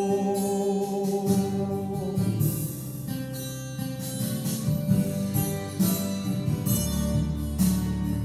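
Instrumental break of a folk-rock backing track with strummed acoustic guitar. A held note ends about two seconds in, and the strumming carries on.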